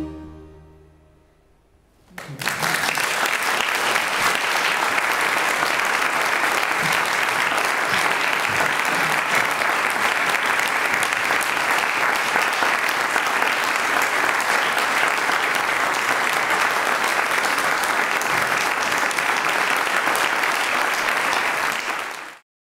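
The final chord of a baroque string ensemble fades away, and about two seconds in an audience breaks into steady applause, which cuts off suddenly near the end.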